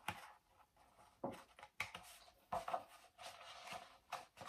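Pages of a hardcover picture book being handled and turned: soft paper rustles with a few light taps and flicks, quiet and irregular.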